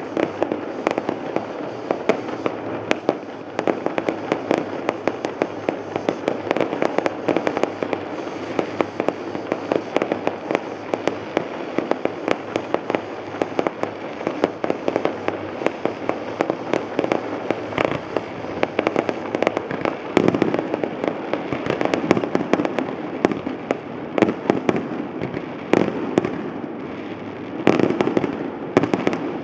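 Fireworks display going off: a rapid, continuous stream of crackling bangs and pops, with a few heavier volleys in the second half.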